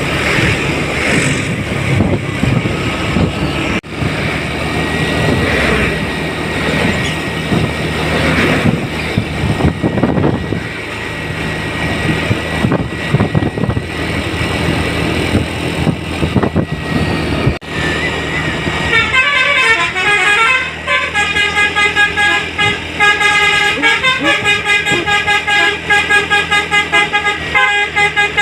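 Bus and traffic engine noise, then, about two-thirds of the way in, a telolet basuri multi-tone bus horn starts playing a fast, rhythmic tune of stepping notes that runs on to the end.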